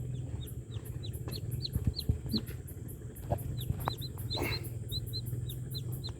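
Newborn chicks cheeping: a run of short, high peeps, each falling in pitch, several a second, with one louder call about four and a half seconds in, over a steady low hum.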